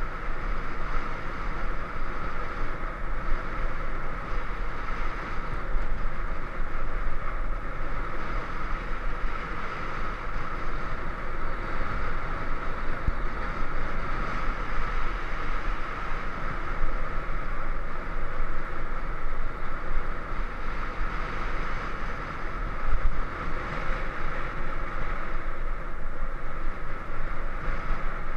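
Steady wind rush on the microphone of a camera moving along a road, with road noise underneath.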